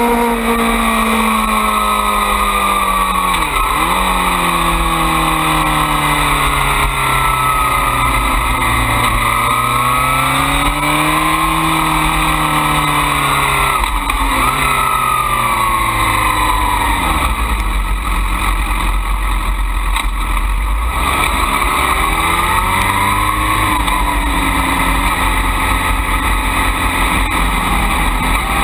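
Suzuki GSX-R 600 inline-four racing motorcycle engine running under the rider, its pitch rising and falling repeatedly with the throttle, with several quick dips as it is shifted or rolled off.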